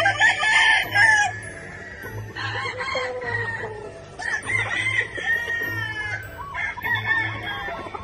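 Gamefowl chickens clucking and a rooster crowing, several calls overlapping. Under them runs background music with a steady low beat.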